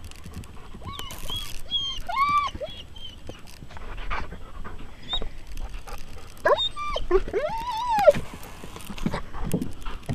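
High whining cries, rising and falling, come in short groups about a second and two seconds in and again in a longer run from about six and a half to eight seconds, over the soft, irregular hoofbeats of a pony loping on sand.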